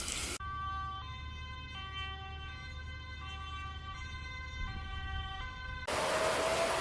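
Two-tone emergency siren alternating between a higher and a lower note about every 0.7 seconds. It starts about half a second in and cuts off sharply near the end, where rushing noise takes over.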